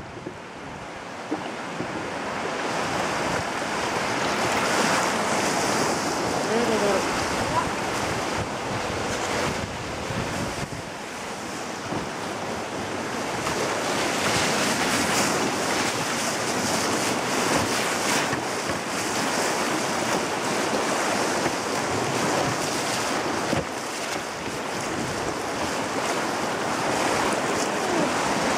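River rapids rushing and splashing around a canoe as it runs through standing waves, with wind noise on the microphone. The rush swells over the first few seconds and then stays loud and steady.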